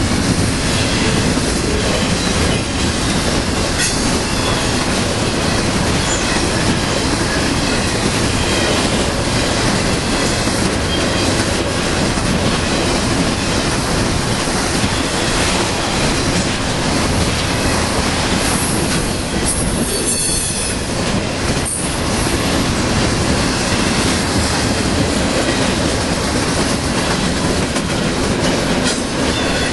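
BNSF intermodal freight train's double-stack container and trailer cars rolling past, their steel wheels running steadily and loudly on the rails.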